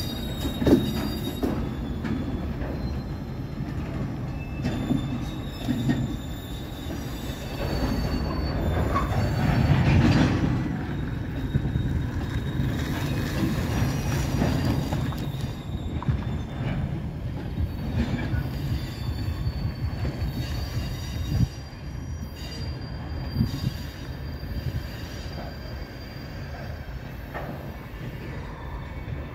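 Freight train's tank cars and covered hoppers rolling past on the rails, a steady rumble with scattered clanks, louder about a third of the way through, then fading as the end of the train moves away.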